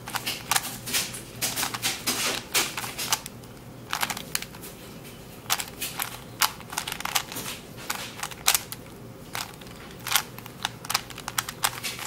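Plastic 3x3 Rubik's Cube being turned by hand, its layers clacking as they rotate in quick, irregular runs of clicks with short pauses between moves.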